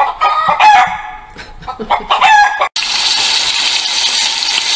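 Rooster crowing and chicken clucking that cut off abruptly a little under three seconds in, leaving a steady hiss.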